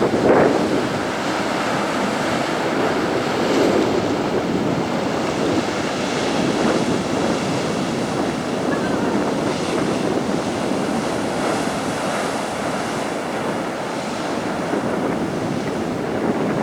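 Atlantic surf washing onto a sandy beach in a steady wash of breaking waves, with wind buffeting the microphone.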